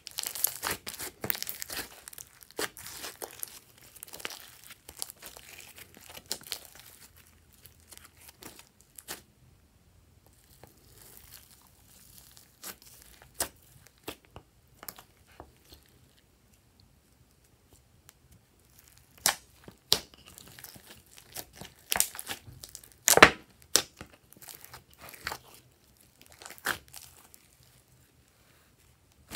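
Glossy slime worked by hand, squeezed, pressed and stretched, giving sticky crackles and sharp pops. The sounds are dense at first, thin out to near quiet in the middle, then come back as louder single pops, the loudest a little past two-thirds of the way in.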